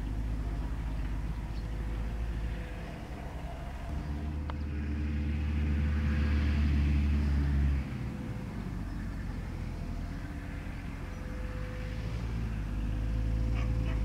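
New Holland 6050 tractor engine running steadily under load as it pulls a Kverneland four-furrow plough, growing louder for a few seconds midway and dropping off suddenly. A dog starts yapping near the end.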